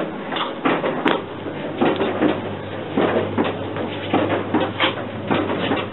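Coin-operated kiddie ride's mechanical base running: irregular clunks and rattles over a steady low hum.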